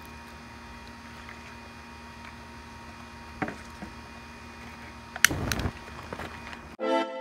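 Gasoline and lighter fluid catching fire with a sharp crack and a short whoosh about five seconds in, after a faint steady hum. Music cuts in near the end.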